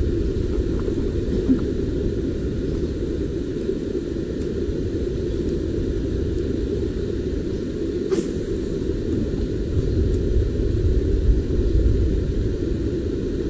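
A steady low rumble from a small fishing boat's engine running.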